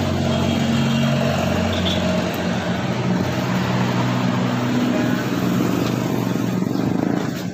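An engine idling steadily, its pitch shifting slightly a few times.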